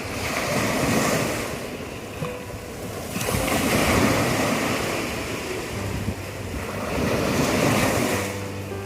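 Sea waves breaking and washing up on a beach, the surf swelling up about every three seconds.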